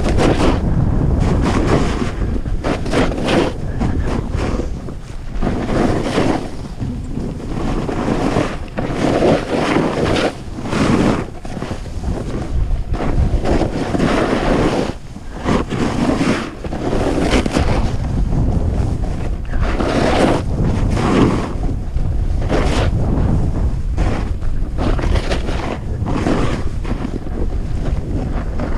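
Wind buffeting the camera microphone of a skier moving downhill, with the hiss and scrape of skis on snow surging every second or two as the skier turns.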